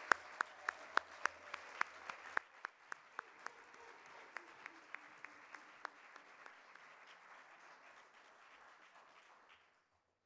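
Audience applauding, with one person's sharp, evenly spaced claps close to the microphone standing out at about three a second. The applause fades gradually and stops about nine and a half seconds in.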